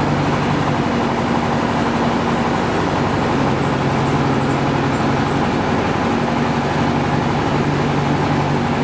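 An engine running steadily, its low drone shifting a little in pitch now and then.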